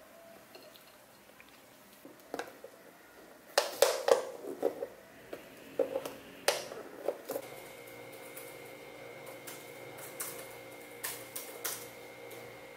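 A plastic food container being handled and its clip-lock lid snapped shut: a run of sharp clicks and knocks. Then a steady hum sets in, with a few light laptop key taps over it.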